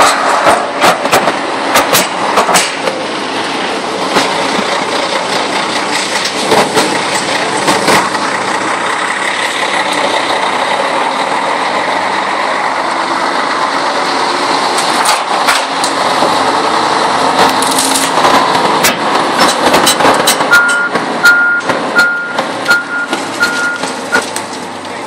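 Forklift running and working at close range, its motor and hydraulics steady under frequent clanks and knocks. Near the end its reversing alarm sounds a run of about six short beeps.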